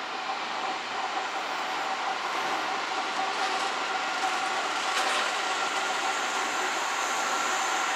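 Keihan Railway electric train of the older, pre-VVVF type running on the line: a steady rolling rumble with a faint steady whine over it, growing gradually louder.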